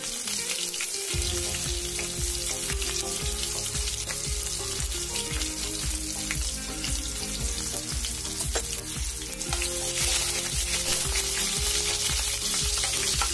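Cumin seeds, sliced green chillies and asafoetida sizzling in hot mustard oil in a kadhai as a tadka. Near the end a steel spatula stirs them.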